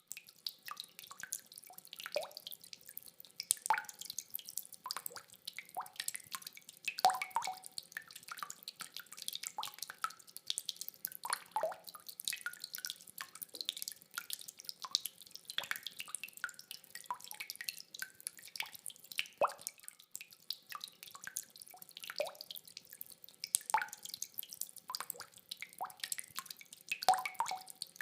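Rainwater dripping: many separate drops plinking and plopping at an irregular pace, several a second, over a faint hiss of rain, with no thunder.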